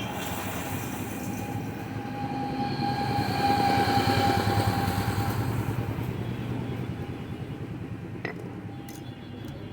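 TVS Apache RTR single-cylinder motorcycle engine running with a fast, even pulse, rising to its loudest about three to five seconds in and settling back down.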